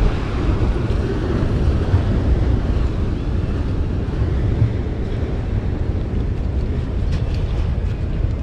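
Steady low rumble with wind buffeting the microphone, and a few faint ticks near the end.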